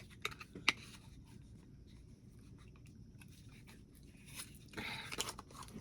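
Cosmetic packaging being handled while a body-oil product is taken out: a couple of light clicks in the first second, then a crinkling rustle of packaging a little over four seconds in.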